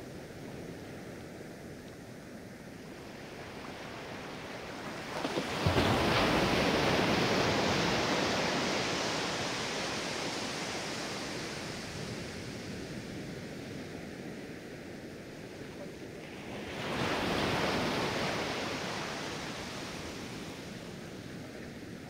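Sea waves breaking on a sandy beach: one wave crashes about five seconds in and washes up the sand, fading slowly, and a second, softer wave breaks about seventeen seconds in and fades the same way.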